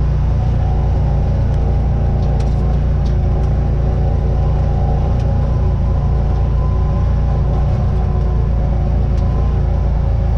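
Can-Am off-road vehicle's engine running at a steady speed while driving, a constant low drone with a held engine tone over it.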